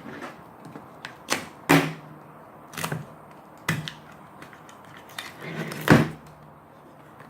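Plastic toy packaging being handled and opened: scattered sharp clicks and knocks, about five loud ones with smaller rustles between.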